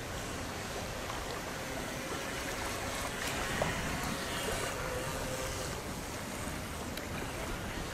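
Radio-controlled racing boat running across choppy water, its small electric motor giving a faint steady hum over the splash of its wake and the water, with wind on the microphone.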